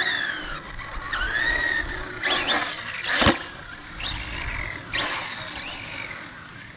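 Electric radio-controlled car's motor whining up and down in a series of short throttle bursts. There is one sharp knock about three seconds in.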